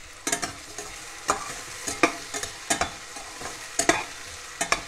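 Diced potatoes frying in oil in a stainless steel kadai with a steady sizzle, while a flat steel spatula scrapes and knocks against the pan roughly once a second as they are stirred.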